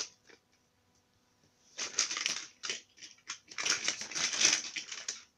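Rustling and rummaging noises in irregular bursts, starting about two seconds in: things being handled and moved about during a search for a toy.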